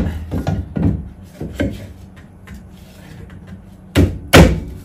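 A car's brake drum being knocked onto its hub: a few light knocks and scrapes, then two loud knocks near the end. The drum is catching on brake shoes that are slightly out of alignment.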